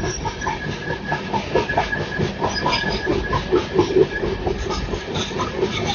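Express passenger train coach running along the track, heard from on board: a steady rumble of wheels on rail with quick, uneven clatter and a thin steady high whine.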